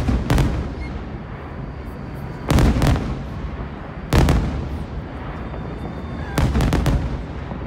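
Fireworks display: aerial shells bursting in loud booms about every two seconds, some doubled and one a quick run of cracks, over a steady low rumble between bursts.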